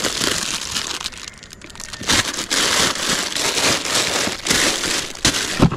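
Plastic bags crinkling and rustling as hands rummage through packaged rubber flip-flops in a motorcycle top box. Briefly quieter about a second in, then busy again, with a couple of sharp knocks near the end.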